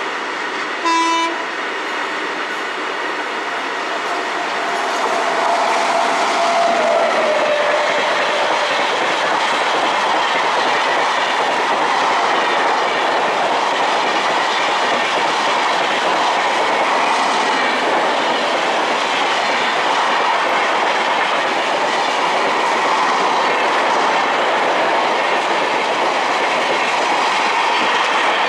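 A train horn gives one short blast about a second in. Then the noise of a train passing at speed builds over the next few seconds and holds steady, with wheels clattering over the rail joints.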